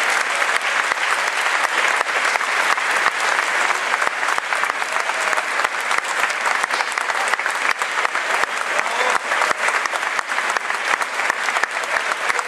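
Concert audience applauding, dense continuous clapping that holds steady throughout.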